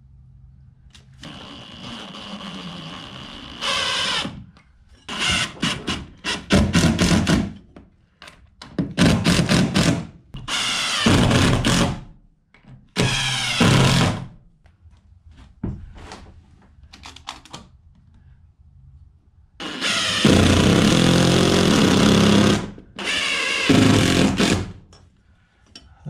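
Cordless drill driving screws through a metal outlet back plate into a wooden log beam. It runs in about eight short bursts, the motor's pitch rising and falling within some of them.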